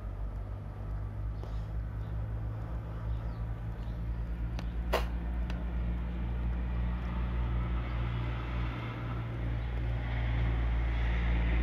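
Road traffic below: a steady low rumble of cars that swells near the end as a vehicle passes. A sharp click about five seconds in.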